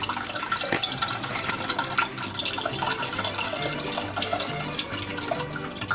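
Liquid being poured into a cocktail mixer with a steady splashing crackle, over background music with a stepping bass line.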